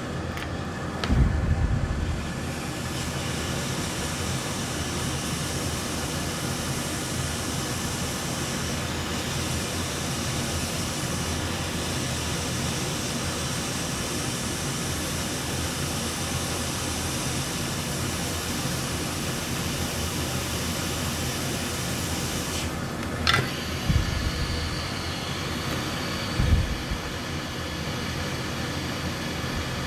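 Hot air rework station blowing a steady rush of air while the blown fuse is heated off the logic board, with a few brief low thumps.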